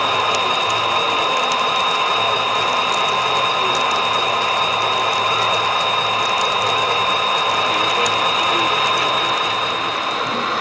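Model freight train running on the layout track: a steady mechanical whine from the motor and gearing, with a few light scattered clicks.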